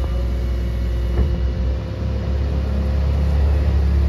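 Case wheel loader's diesel engine running as the loader drives forward, working a little harder and louder in the second half, with a single clank about a second in.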